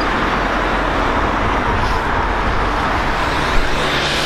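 Steady noise of road traffic, cars and tyres, from a busy road close by.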